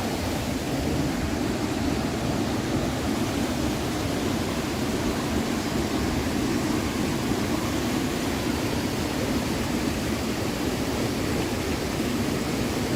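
Steady rushing of creek water, an even unbroken wash of noise.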